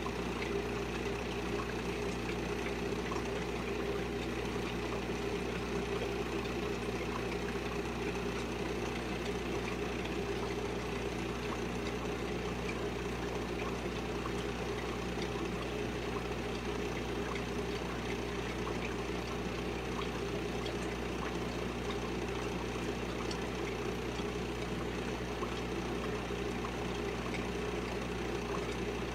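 Aquarium pump motor humming steadily, with faint scattered ticks.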